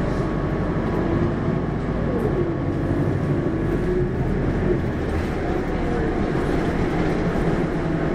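Hino QDG-KV290N1 city bus's diesel engine running steadily with a constant low hum, a few faint wavering tones drifting up and down over it.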